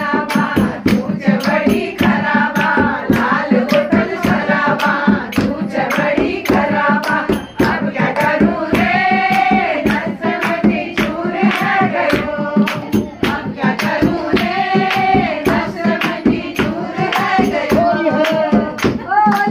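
Women singing a Holi song together, with a steady beat of hand clapping.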